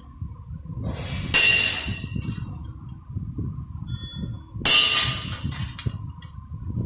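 Two loud metallic clangs about three seconds apart, each ringing briefly, over a steady low rumble and a faint steady hum.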